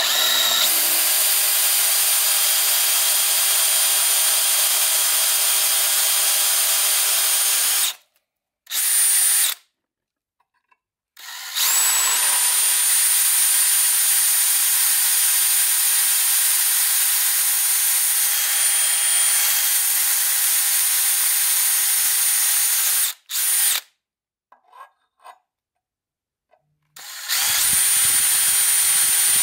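Hand-held electric drill running steadily as a small twist bit cuts pilot holes through a steel plate lubricated with cutting oil. It stops about eight seconds in, gives one short burst, pauses, runs again for about eleven seconds, stops, and starts again near the end.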